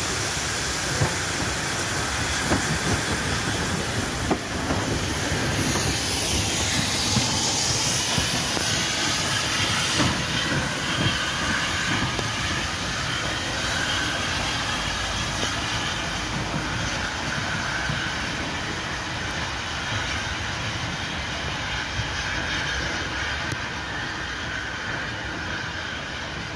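Steam locomotive at work: a steady hiss of steam with rail clatter and scattered knocks.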